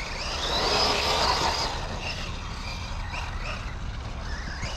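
Losi Lasernut U4 RC rock racer's brushless motor and 4WD drivetrain whining as the throttle is worked, the pitch rising about a second in and then dipping and surging in short bursts.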